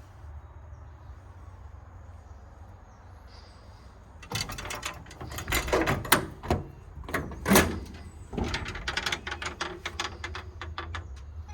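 Metal compartment doors and latches of a truck's service body being worked: a run of clanks and knocks with two loud bangs near the middle, then a quick string of rattling clicks.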